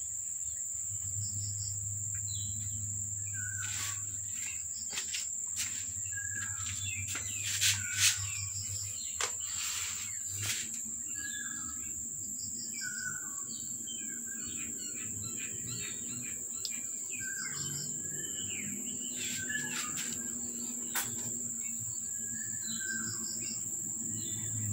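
Small birds chirping on and off over a steady high-pitched insect drone, with a few sharp clicks in the first half, the loudest two close together.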